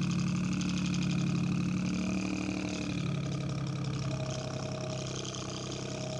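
Electric desk fan running on high with a finger pressed against it for resistance, giving a steady, fast-pulsing low drone that imitates a two-stroke Detroit Diesel at idle.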